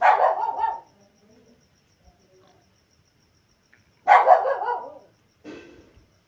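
A dog barking in three bursts: one at the start, a second about four seconds in, and a weaker one about a second and a half after that.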